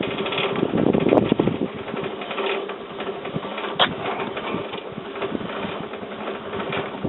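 R-60 log band sawmill with a 5.5 kW electric main motor running, a steady hum under a continuous mechanical rattle. One sharp click comes about four seconds in.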